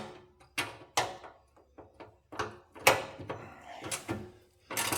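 Hand tools on a nut: a ratchet and wrench clicking and knocking in sharp, irregular strokes, about eight in all, as the nut is tightened.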